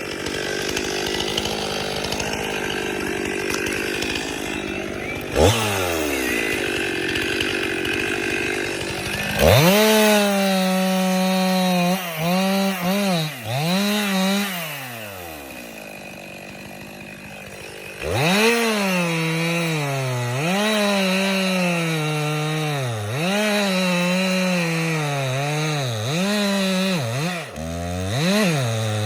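Chainsaw cutting a tree, its engine revving up and dropping back over and over as the throttle is worked. It falls to a quieter idle for a few seconds about halfway through, then revs again.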